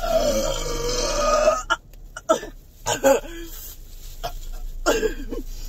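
A girl's long, drawn-out burp lasting about a second and a half, followed by several shorter burps, brought on by drinking Sprite on top of a stomach full of banana.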